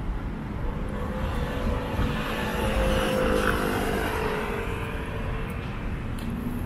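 City street noise with one engine passing by, its sound swelling about two to four seconds in and then fading.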